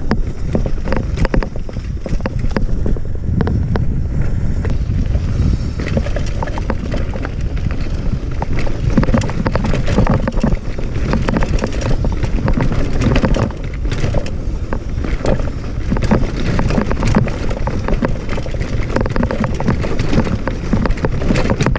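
Cross-country mountain bike riding fast down a loose rocky trail: tyres crunching over gravel and stones, with frequent sharp clatters and knocks from the bike jolting over bumps. Wind buffets the microphone with a steady low rumble.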